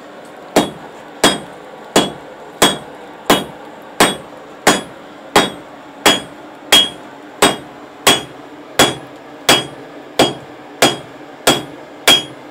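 Blacksmith's hand hammer forging hot iron on an anvil: about eighteen steady, evenly spaced blows, roughly one and a half a second, starting about half a second in, each with a short metallic ring.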